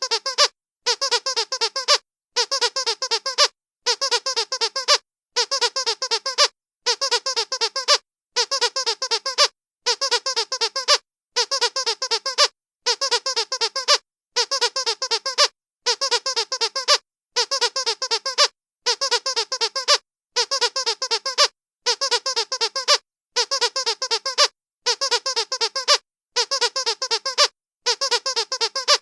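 Rubber dog squeaky toy being squeezed in quick bursts of squeaks, each burst about a second long, repeating evenly with short pauses between.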